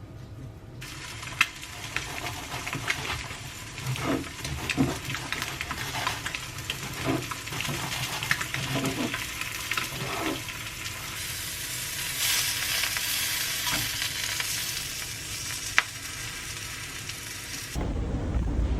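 Food sizzling in a frying pan, with scattered taps and scrapes of a utensil stirring it. The sizzle grows louder about twelve seconds in, and near the end the sound cuts to a low rumble.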